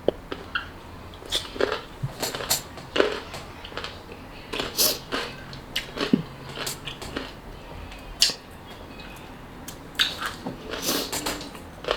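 A chamoy pickle being bitten and chewed close to the microphone: irregular, crisp, wet crunches and smacks come every fraction of a second to a second or so.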